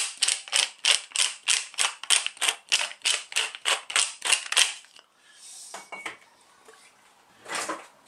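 Wooden pepper mill being twisted to grind black pepper, a quick even crunching of about four strokes a second that stops about five seconds in. A brief click and a short noise follow near the end.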